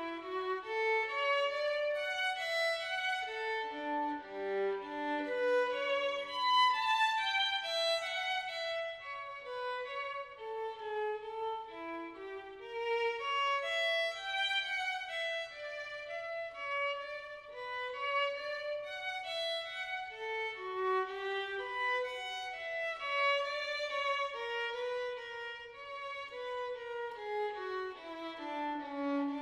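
Instrumental background music: a single melody line of quick, flowing notes that rises and falls throughout.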